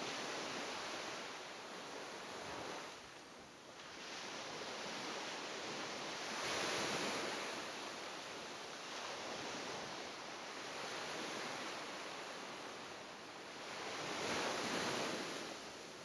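Sea waves breaking on a sandy beach: a continuous wash of surf that swells louder twice, near the middle and again near the end, as waves break.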